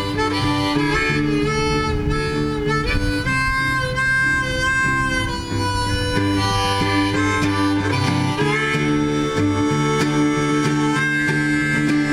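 Harmonica playing a melody of long held notes over acoustic guitar, an instrumental passage in a live folk song.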